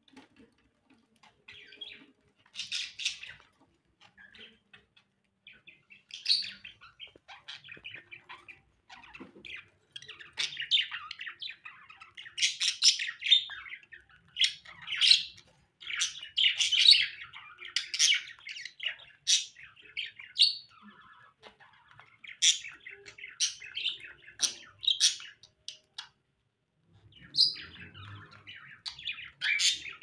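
Caged small parrots, a cockatiel and a budgie, chirping and squawking in many short high calls. The calls are sparse at first and come thick and fast through the middle.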